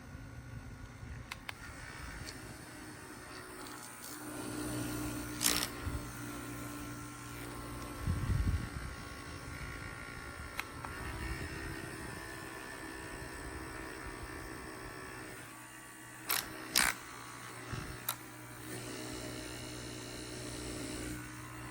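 Small handheld USB fan running with a steady motor whir and hum. Its pitch shifts slightly about halfway through, and a few sharp clicks and handling knocks come in between.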